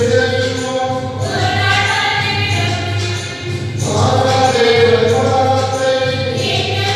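Church choir singing in long, held phrases, with a new phrase beginning about a second in and again near the four-second mark, over a steady low hum.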